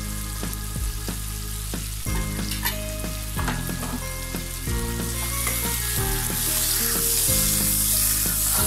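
Sliced onions with ginger and garlic paste sizzling in hot oil and ghee in a pan, the sizzle growing louder in the second half as they are stirred. Soft background music with sustained notes plays underneath.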